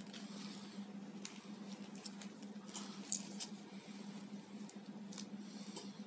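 Scattered light clicks and rubbing as a Victorinox Picknicker folding knife is handled in nitrile gloves and wiped with a cotton pad, over a faint steady hum. The sharpest clicks come about a second in and around three seconds in.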